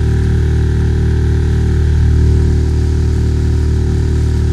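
Noisy outboard motor on a heavily laden inflatable boat running at a steady, even pitch while under way.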